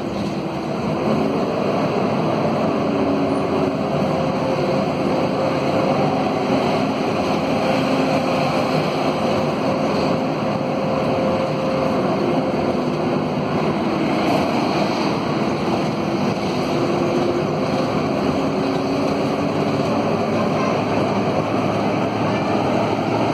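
Scania K230UB city bus underway, heard from inside the passenger cabin: its Scania DC9 diesel running with the radiator fan howling over steady road noise. The howl holds a few tones that drift slightly up and down in pitch.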